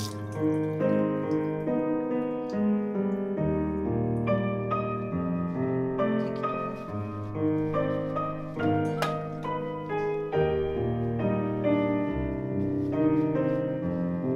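Background piano music: a gentle piece of sustained, overlapping notes.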